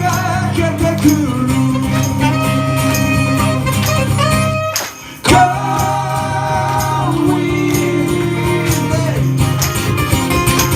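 Live band music, a rock song with guitar and singing; the band breaks off for a moment about halfway through, then comes back in with a hit.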